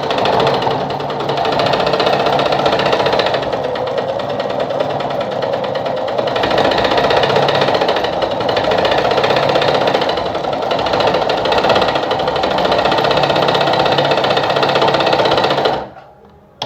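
Sartina e-100 sewing machine running steadily, sewing its built-in decorative stitch pattern number 5, then stopping suddenly about a second before the end.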